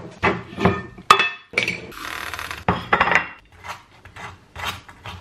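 Breakfast-table handling sounds: a few knocks and clinks of a mug and crockery, then a table knife scraping butter across crusty toast in several quick strokes.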